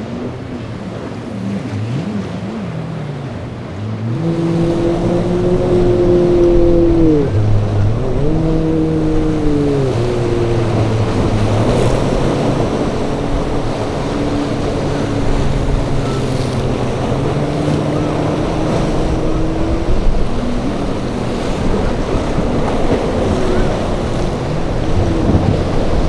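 Azimut 42 flybridge motor yacht's engines running hard through rough inlet waves, starting louder about four seconds in. Their pitch dips and rises over the rush of water and spray from the hull crashing through the swells, with wind on the microphone.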